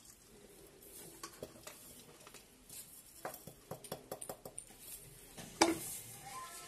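Stainless-steel mixer-grinder jar knocked and tapped against a steel tray as ground seeds are emptied out: a run of light metal clinks and taps, then one sharp metal clack near the end.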